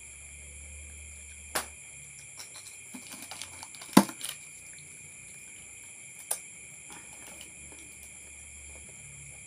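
Steady high chirring of night insects, with a few sharp knocks and clicks from things being handled on a table. The loudest knock comes about four seconds in.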